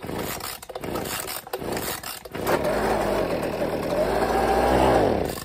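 Husqvarna 125B leaf blower's small two-stroke engine being pull-started on choke: a couple of seconds of rope pulls and uneven firing, then it catches about two and a half seconds in and runs with its speed wavering up and down, cutting off suddenly at the end. The engine has carburetor trouble: it doesn't prime well and won't run off choke.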